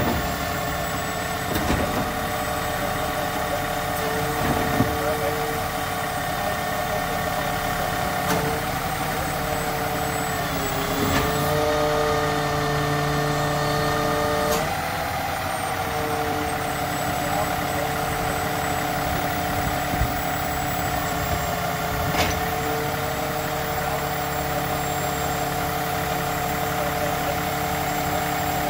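Side-loading garbage truck's diesel engine idling steadily with a whine over it; about a third of the way in the note dips and changes for a few seconds, then settles back. A few light clicks are scattered through.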